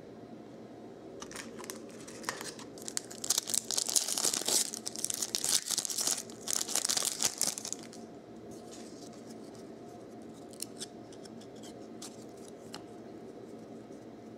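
A foil trading-card pack wrapper being ripped open and crinkled for several seconds, followed by faint clicks and slides of the cards being handled and sorted.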